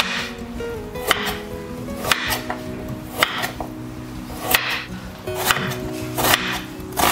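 Chef's knife chopping a carrot and later an onion on a cutting board: sharp knocks of the blade against the board about once a second, a little uneven, over background music.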